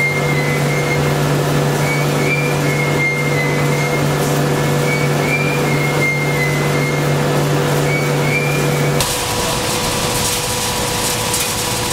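Machinery of a refrigerator recycling plant running with a steady hum and a wavering high-pitched squeal over it; about nine seconds in the sound changes abruptly to a different steady machine noise.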